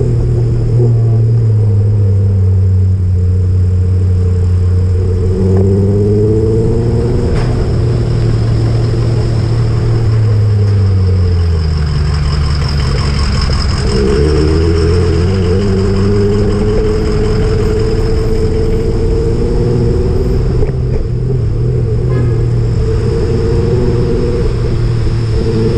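A motor vehicle's engine running steadily, its pitch dropping as the vehicle slows about halfway through, then rising again as it speeds back up.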